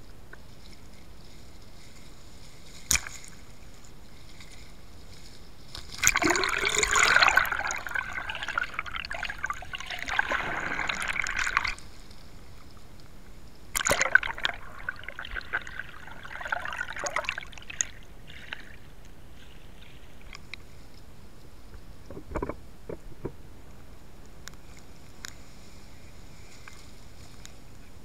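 Shallow beach surf rushing and splashing right at the microphone, which sits at the water's surface: two long surges of washing water, the first about six seconds in and lasting nearly six seconds, the second about fourteen seconds in. A sharp click comes near three seconds and a few short knocks come later.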